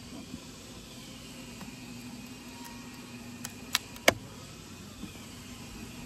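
Honeybee colony humming steadily from the opened hive, with two sharp clicks close together about two-thirds of the way through as the metal hive tool works at the wooden frames.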